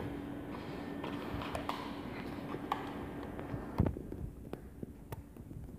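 Close handling of a plastic box on the lap, heard as light clicks and rubbing, with one dull thump just before four seconds in. A faint steady hum runs underneath until about then.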